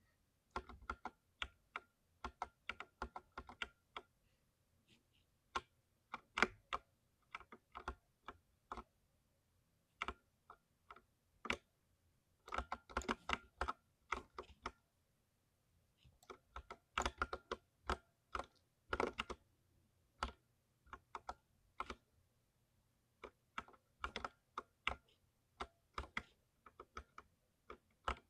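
Typing on a mechanical keyboard tuned for a deep, muted 'thocky' sound: irregular runs of keystrokes with short pauses between bursts.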